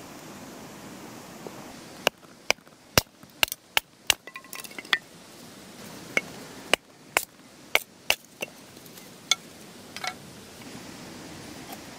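Cookware and utensils clinking as they are handled: a run of about a dozen sharp, irregular clinks and knocks starting about two seconds in, over a steady hiss.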